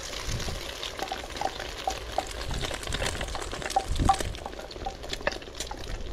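Beaten egg poured from a stainless steel bowl into smoking-hot oil in a thin pan, sizzling and bubbling with scattered crackling pops, and a knock about four seconds in.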